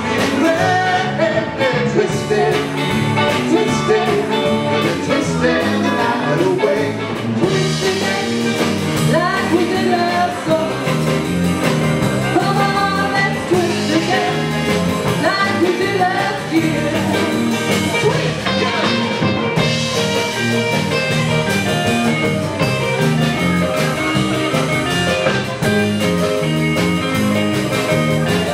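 Live band playing a cover song: a woman singing over electric guitar, drum kit and keyboard.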